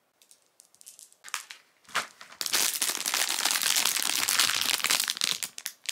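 Paper or plastic being crinkled close by: a few light rustles and ticks at first, then dense continuous crinkling from about two and a half seconds in that stops just before the end.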